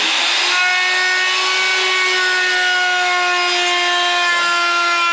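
Electric wood router running at speed at a steady pitch, its bit cutting into a wooden door panel.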